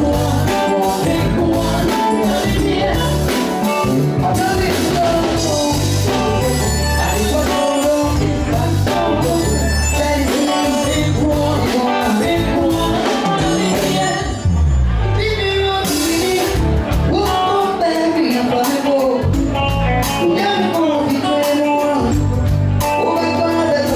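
A band playing with singing over a heavy bass line and steady drum beat. About halfway through, the cymbals and high end drop away for a couple of seconds, then the full band comes back in.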